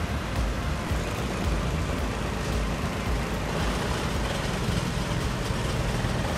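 Komatsu PC88 excavator's four-cylinder 3.3-litre diesel engine and hydraulics running steadily under load while a hydraulic attachment works against the ground.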